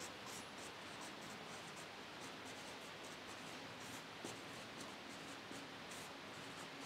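Marker pen writing on a whiteboard: faint, quick strokes, one after another.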